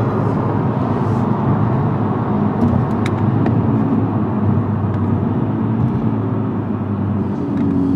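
Engine and road noise inside the cabin of a moving 2022 Honda Civic: a steady hum with tyre noise, with a few faint clicks about three seconds in and a slight change in engine pitch near the end as gears are stepped with the paddle shifters.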